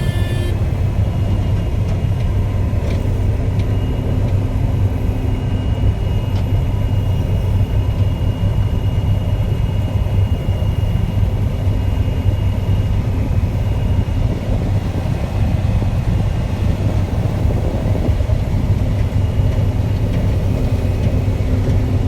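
John Deere combine running, its engine and machinery a steady low drone.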